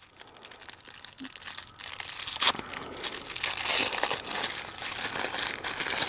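The paper wrapper of a pack of firecrackers being opened by hand, with a crinkling and tearing sound. It starts faint and gets louder about two seconds in, with one sharp snap.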